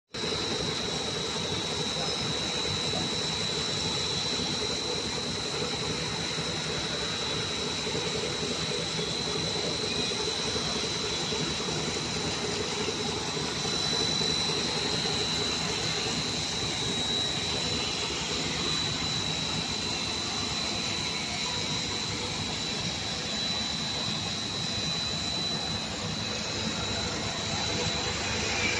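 Corn flakes production machinery running steadily: the electric motors of the extruder and the belt-driven flaking roller mill, with a steady high whine over the even machine noise.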